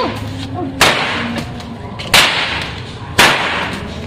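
A long braided pecut (Javanese jaranan whip) is swung and cracked three times, about a second apart. Each crack is sharp and trails off briefly.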